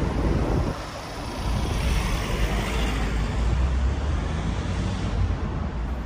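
Road traffic: the steady rush and rumble of vehicles going by, dipping briefly about a second in, then swelling again as another passes close through the middle.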